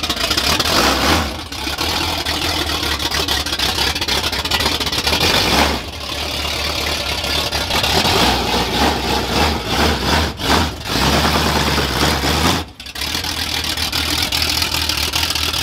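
Ford Bronco's engine running loud through its exhaust, revved repeatedly as the truck drives, with a few brief drops in loudness where the throttle eases off.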